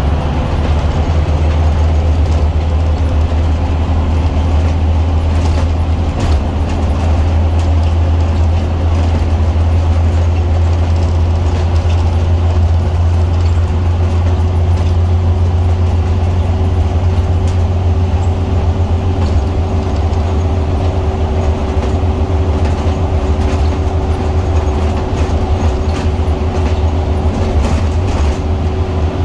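Interior of a Scania OmniCity double-decker bus on the move: its Scania DC9 nine-litre five-cylinder diesel runs steadily with a low drone, under tyre and road noise and light rattles from the saloon fittings. A faint high whine fades out about twenty seconds in.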